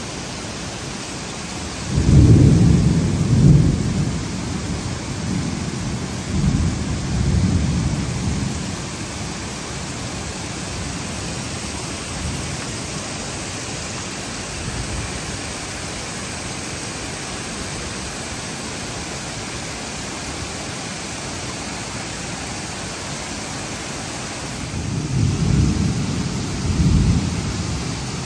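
Heavy rain falling steadily, with rolling thunder: a deep rumble starting about two seconds in that rolls on and swells again for several seconds, and another rumble near the end.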